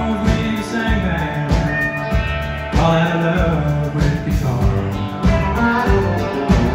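Live country band playing: fiddle, electric guitar, keyboard, drums and upright bass, over a steady drum beat.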